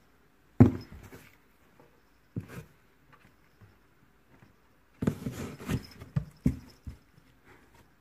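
Thumps and scuffles on cardboard boxes as a cat inside play-fights with a hand poking at the openings. A sharp knock comes about half a second in, another after about two and a half seconds, and then a quick flurry of knocks for about two seconds.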